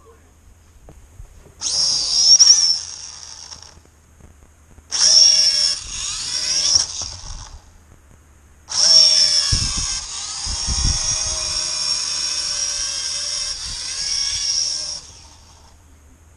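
Small quadcopter drone's motors and propellers whining in three spells: two short ones of about two seconds each, then a longer one of about six seconds, the pitch rising and falling with the throttle. A couple of low thumps come partway through the long spell.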